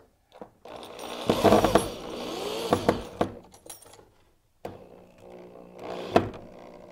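Corded electric drill running in two bursts against a wooden window frame header while fitting a blind clip. The first burst is louder and about two and a half seconds long. The second, after a short pause, is quieter and ends with a sharp click.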